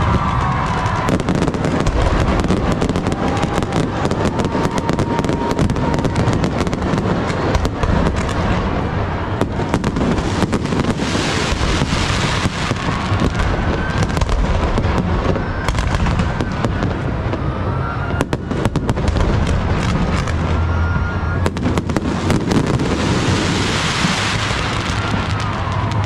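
Aerial fireworks display: a continuous barrage of shell bursts and bangs, swelling into dense crackling about ten seconds in and again near the end.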